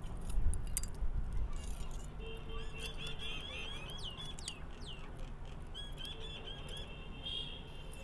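Pliers gripping and bending the thin steel case of a cylindrical lithium-ion laptop battery cell, with sharp metallic clicks mostly in the first second or so. A bird chirps repeatedly in the background, in two runs of quick calls.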